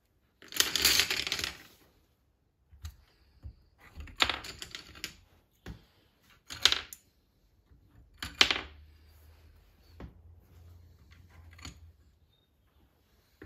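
Wooden colored pencils clattering against one another and against hollow bamboo tubes as they are gathered from a pile and slotted into the holes. The sound comes in four short bursts, the first and longest about half a second in, then quieter handling noise.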